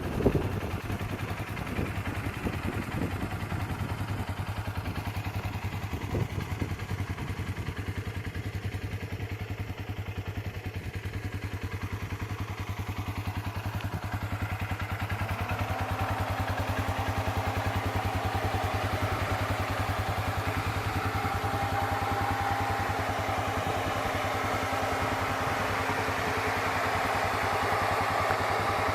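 UTV engine running steadily on the move, with a few knocks and rattles in the first several seconds. About halfway through, a higher engine note comes in and the sound gets a little louder as the machine picks up pace.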